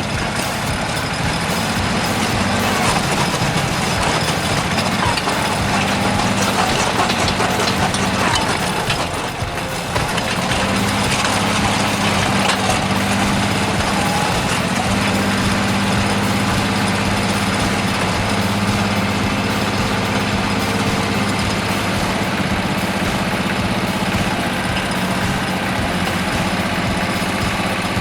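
An engine running steadily with a constant low tone and a dense mechanical noise over it, dropping briefly about nine seconds in before carrying on.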